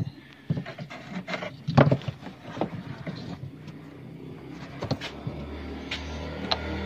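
Scattered knocks and clicks of parts being handled on the washing machine, then a steady low hum sets in about five seconds in.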